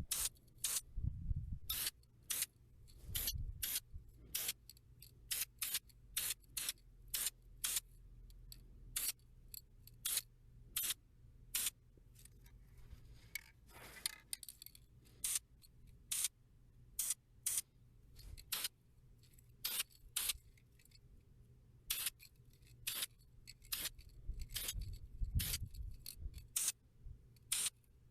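A series of short, sharp clicks or snips at irregular intervals, about one or two a second, with a brief hiss about halfway through.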